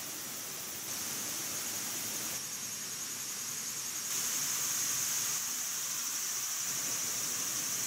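Insects chirring in a steady, high-pitched chorus over a background hiss, getting a little louder about four seconds in.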